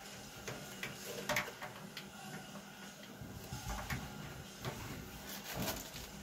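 Scattered light clicks and rustles of wire leads and plastic connector parts being handled and pushed into place inside an opened tumble dryer, several sharper clicks about a second in and again near the end.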